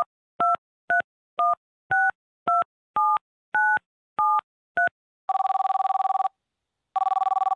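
Touch-tone phone keypad dialing a ten-digit number: ten short two-note beeps about half a second apart. Then a phone ringing twice, each electronic ring about a second long.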